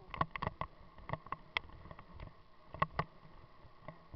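Mountain bike rolling over a bumpy dirt track, its frame and the bike-mounted camera rattling with sharp, uneven clicks and knocks several times a second, two louder knocks about three seconds in.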